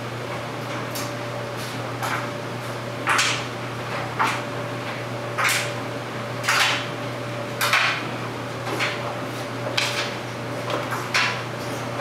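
Clothes dryer running, with a steady motor hum under the turning drum. Irregular clunks, about one a second, come as the tumbling load knocks against the drum.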